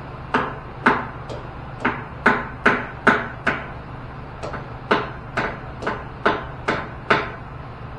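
Lead mallet tapping repeatedly on the gearbox casting of a Cincinnati milling machine to break a stuck part loose: about fifteen dull knocks, roughly two a second, with a short pause near the middle.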